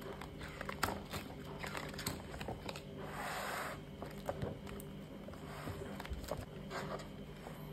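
Laminated plastic sheets in a ring binder being turned by hand: a brief rustling swish about three seconds in, with faint handling clicks around it.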